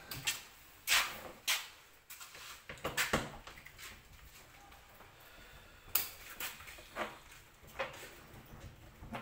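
Irregular clicks and knocks of small tools and parts being handled at a workbench, with a few sharper clacks about a second, three seconds and six seconds in.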